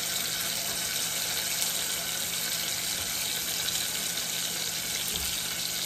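Red chile sauce sizzling steadily as it drips through a mesh strainer into hot oil in a pot.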